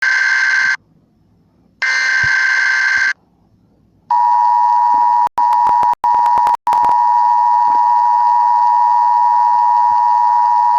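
Emergency Alert System header: two bursts of SAME digital data, each about a second long. Then, about a second after the second burst, the EAS attention signal starts: a steady electronic tone with three very brief dropouts soon after it begins.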